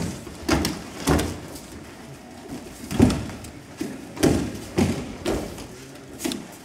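Bodies landing on tatami mats as aikido attackers are thrown and take breakfalls: about seven sharp thuds and slaps at irregular intervals, the loudest about three seconds in.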